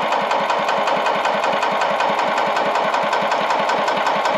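Yamaha G2 golf cart's single-cylinder four-stroke engine being cranked over by its starter, in an even, fast pulsing rhythm without catching, while fuel is drawn back up to a carburetor that had run dry.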